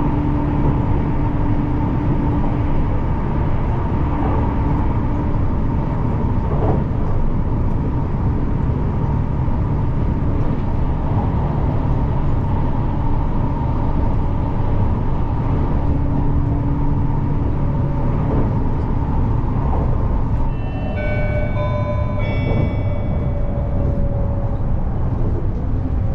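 Narita Express electric train running, heard from inside the carriage: a steady rumble of wheels and running gear with a motor whine that comes and goes. Near the end a short electronic chime of several tones sounds, over a whine that falls slowly.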